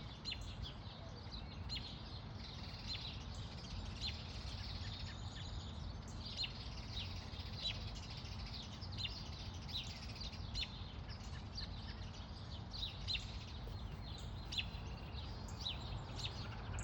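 Small birds chirping over and over in short, quick, falling notes, over a steady low rumble of background noise.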